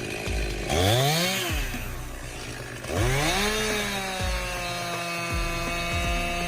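Chainsaw engine revving up and falling back about a second in, revving up again about three seconds in, then running at a steady high pitch.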